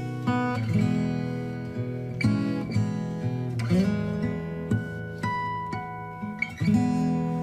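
Background music: an acoustic guitar playing plucked notes that ring out one after another.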